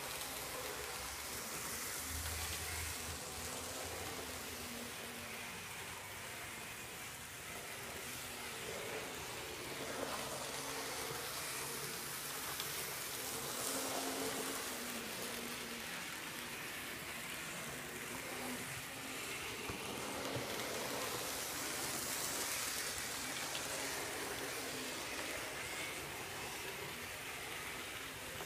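Märklin Z scale model train running on the layout track: a steady fine hiss of tiny wheels on the rails with a faint wavering motor whine, a little louder about halfway through as it passes close.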